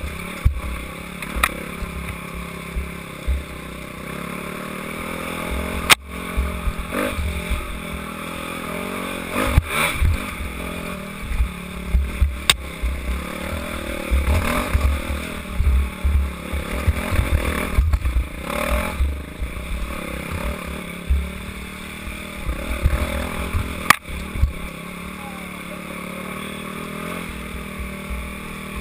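Dirt bike engine running at speed, rising and falling with the throttle, heard from a helmet-mounted camera with wind buffeting the microphone. A few sharp knocks from the bike hitting bumps and roots.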